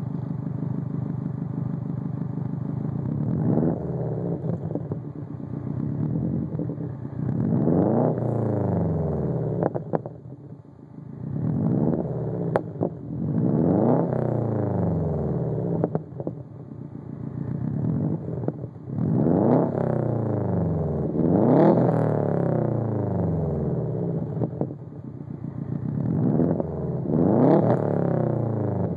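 2006 Subaru Legacy GT's turbocharged 2.5-litre flat-four, stage 2 tuned, through a custom single-exit exhaust. It idles steadily, then is revved in about ten short blips, each rising and falling back to idle. There are a couple of sharp cracks between revs.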